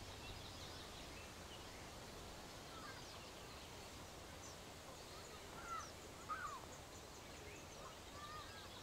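Several birds chirping and calling in short rising and falling notes over a faint steady outdoor hiss. A few louder calls come a little past halfway.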